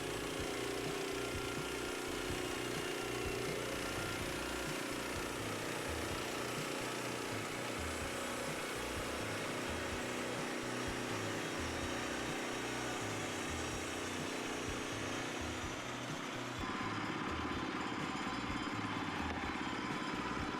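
Woodland Mills HM122 portable band sawmill's small gas engine running steadily. About three-quarters of the way through the sound changes: the hiss at the top falls away and a steadier hum comes in.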